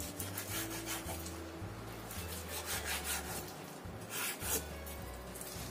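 Kitchen knife slicing through raw chicken thigh on a wooden cutting board: a run of short scraping strokes of the blade through the meat and against the board, loudest a little past four seconds in.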